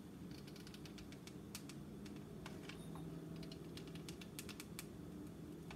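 Faint, irregular clicks and taps from handling a hot glue gun and small craft pieces, over a low steady hum.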